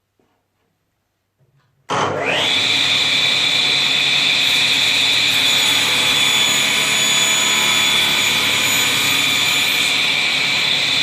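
Frommia 635 three-phase table saw switched on about two seconds in: the motor and blade spin up with a quickly rising whine, then run steadily at full speed.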